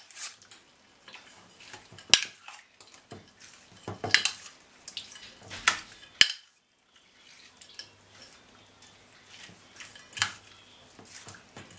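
Metal spoon clinking and scraping against a stainless steel bowl as raw beef chunks with sliced peppers and onions are stirred, with sharp clinks every second or two.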